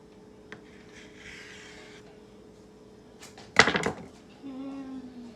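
A sudden clatter of kitchen things being handled and set down on the counter, one sharp knock about three and a half seconds in, with a few light ticks before it, over a faint steady hum.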